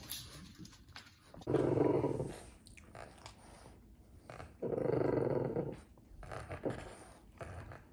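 French bulldogs growling while tugging over a bone, two growls each about a second long.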